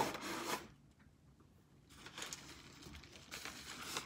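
Wrapping paper rustling as a gift box is unwrapped, with a short quiet pause about a second in.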